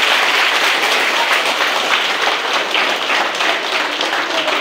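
Audience of schoolchildren applauding, a dense patter of many hands clapping that eases off slightly near the end.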